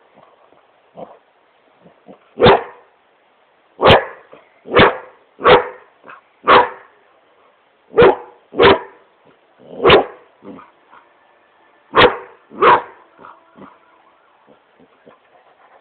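Great Pyrenees puppy barking in play: about ten short, loud single barks, several coming in quick pairs, that stop about 13 seconds in.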